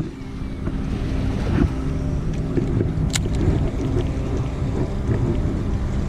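Steady low rumble of a boat on open water, with wind buffeting the microphone and a faint steady hum running under it. One sharp click about three seconds in.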